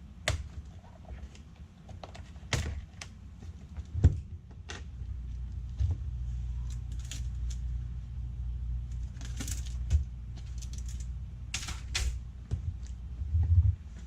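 Scattered clicks and taps of hands and tools working on a Dell Latitude 7480 laptop, a few of them sharper and louder. A low steady hum comes in about a third of the way through.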